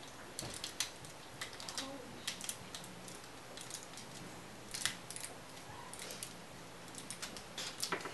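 Plastic parts of a Terrorcon Cliffjumper transforming toy figure clicking and clacking faintly as it is handled and folded, with scattered, irregular small clicks.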